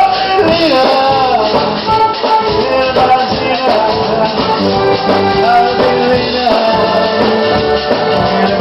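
Music: a melody of held and sliding notes over rattling hand percussion, at a steady loud level.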